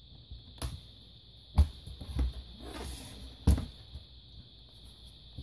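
Small laptop parts being handled and set down during reassembly: a few sharp clicks and knocks of plastic and metal pieces, the loudest about one and a half and three and a half seconds in.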